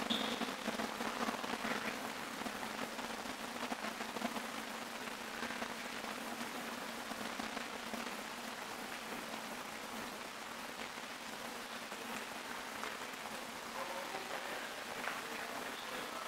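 Steady rushing noise echoing in an underground subway station, slightly louder at first and easing off slowly.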